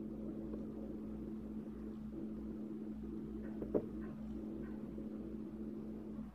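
Steady low background hum: a faint constant tone over a low rumble that pulses about three times a second, with one short click nearly four seconds in.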